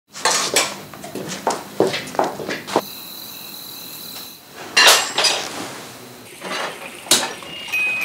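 Ceramic plates and dishes clinking and clattering: a quick run of irregular knocks over the first three seconds, then a few louder clanks later on.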